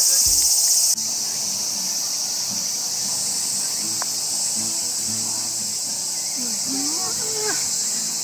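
Steady high-pitched chorus of insects shrilling, dropping a little in level about a second in, with faint distant voices underneath.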